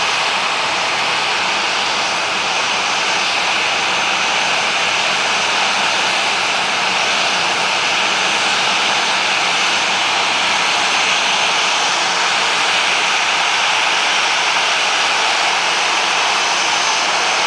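Boeing 737-800's CFM56 jet engines running at low power as the airliner taxis close by: a steady, even rushing hiss that holds level throughout.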